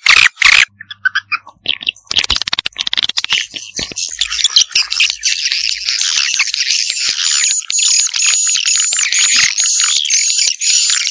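Swiftlet lure-call recording: dense, rapid chirping and twittering of swiftlets. After a short break about a second in, it builds into a continuous high chatter with a steady trill over it from about the middle on.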